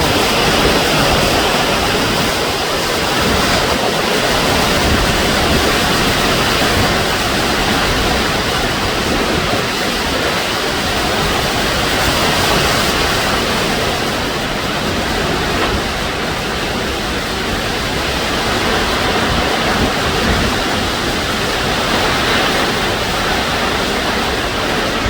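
Hurricane-force wind and heavy driving rain making a loud, steady rushing noise that swells and eases slightly.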